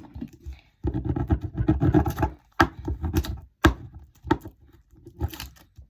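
Transfer tape being rubbed down by hand onto paper, a stretch of rubbing and handling noise about a second in, then several sharp taps and knocks.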